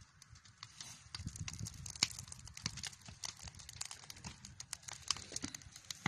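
Open wood fires under large cauldrons crackling, with many irregular sharp pops and snaps over a low rumble.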